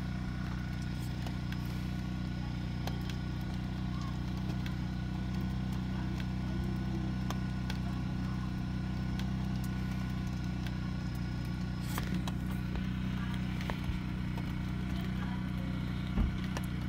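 A steady low hum made of several even tones runs throughout. Over it are a few light, scattered clicks of a kitchen knife cutting red peppers on a plastic cutting board.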